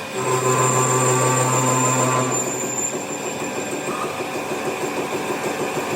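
A workshop machine running: a steady hum with a high whine for about two seconds, then a fast, even rattle until the end.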